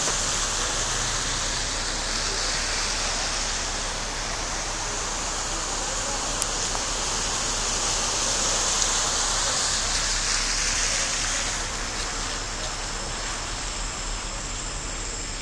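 Steady rushing hiss of water as cars plough through deep floodwater on the street, throwing up spray; it eases off about twelve seconds in.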